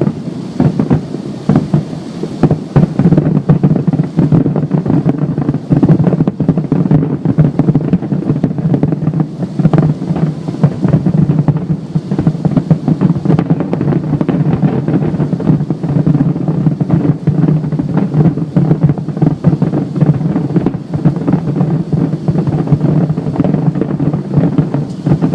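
Fireworks going off in a near-continuous barrage, dense overlapping booms and bangs with no break, very loud.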